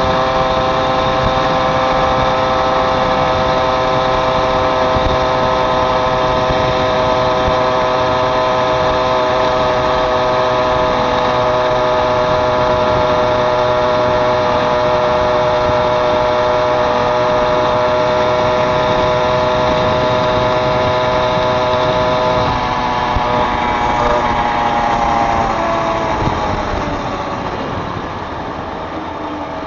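Small two-stroke Mobylette moped engine running at a steady pitch, then slowing in the last few seconds, its pitch falling away.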